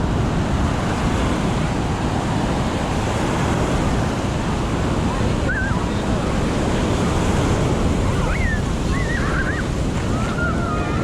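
Ocean surf washing onto a beach in a steady rush, with wind buffeting the microphone. Faint distant voices rise and fall over it in the second half.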